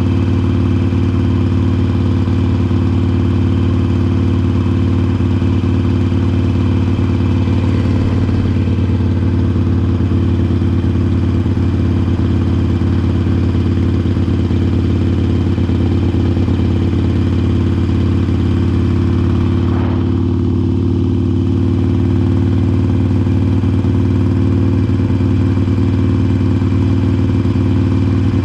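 2020 Harley-Davidson Iron 883 Sportster's air-cooled 883 cc V-twin running through a Vance & Hines Short Shots slip-on exhaust, held at steady revs with no change in throttle.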